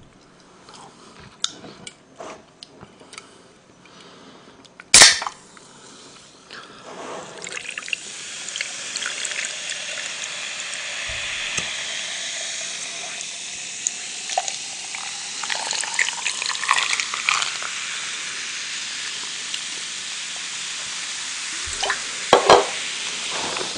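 A can of Coca-Cola cracked open with one sharp pop, then poured into a plastic cup: a long fizzing, splashing pour whose pitch rises as the cup fills. A few light clicks near the end.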